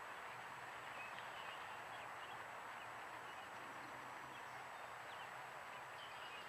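Faint, scattered high bird peeps, a handful over several seconds, over a steady outdoor background hiss.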